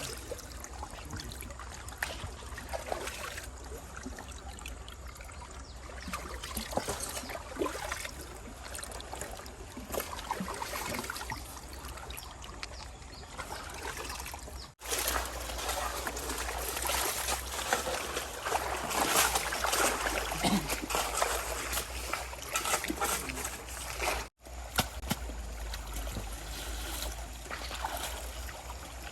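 Shallow stream water trickling and splashing, louder for a stretch in the middle. It cuts out for an instant twice.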